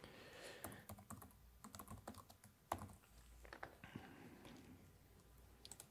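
Faint typing on a computer keyboard: irregular light key clicks as text is entered into a form field.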